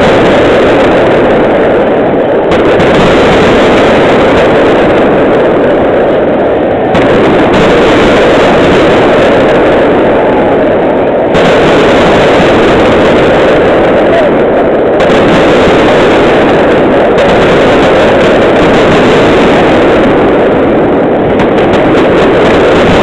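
Fireworks going off in a dense, continuous barrage, heard as one unbroken, distorted roar that overloads the microphone, with no single bangs standing out.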